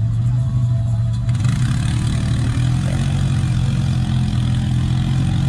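ATV (four-wheeler) engine running at a steady low drone as the quad crawls through deep mud.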